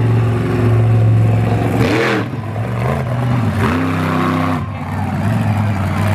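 Incinerator monster truck's supercharged V8 engine revving hard under throttle. It dips and climbs about two seconds in, then surges to a higher pitch for about a second before dropping back.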